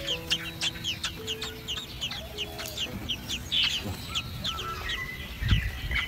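Birds chirping: quick, high, downward-sliding chirps repeated several times a second, over soft background music with held notes. A low thump sounds near the end.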